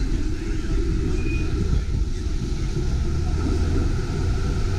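CLRV streetcar running along the street: a steady low rumble.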